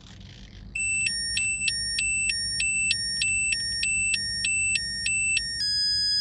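Electronic two-tone beeping that alternates high and low about three times a second, like a toy siren, then changes to one steady high beep near the end.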